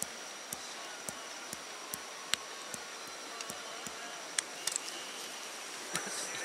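Steady high-pitched insect trill over forest ambience, with a soft low pulse repeating about two and a half times a second and a few sharp clicks.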